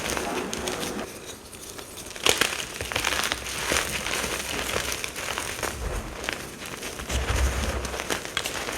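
Pressed mica powder bombs being crushed and crumbled, a run of dry crackling crunches with a sharp crack a little over two seconds in.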